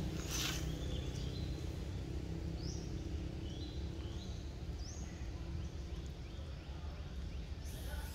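Steady low outdoor rumble with several short, high-pitched animal chirps scattered through, some rising in pitch, and a brief hiss about half a second in.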